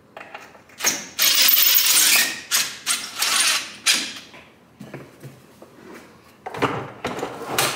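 Cordless drill/driver driving a screw through a plastic wall-mount bracket in several stop-start runs. Near the end come sharp plastic knocks and rattles as a 5-gallon wet/dry shop vacuum is hung on the bracket.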